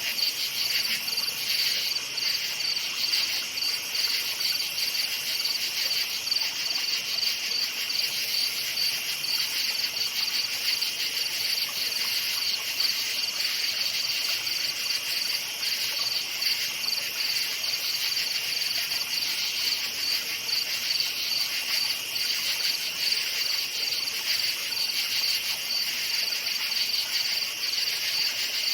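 Crickets chirping at night: a dense, steady chorus of high, rapidly pulsing trills, with a second, lower band of insect song beneath.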